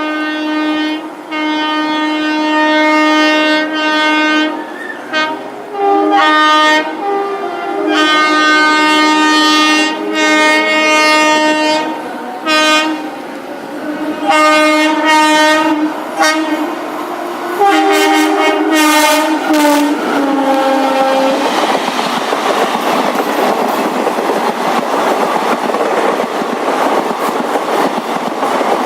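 Horn of an Indian Railways WAP-4 electric locomotive, blown over and over in long blasts and short toots for about twenty seconds. Then the horn stops and the coaches run past with their wheels clattering over the rail joints.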